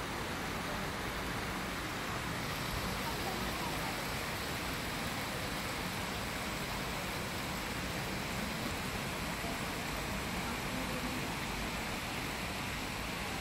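Steady rushing of water from an indoor waterfall cascading down a stone wall into a pool.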